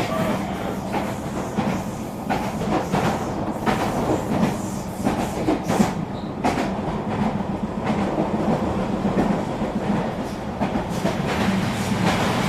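Regional passenger train running at speed: a steady rumble and hum, with frequent irregular clicks and knocks of the wheels passing over rail joints and points.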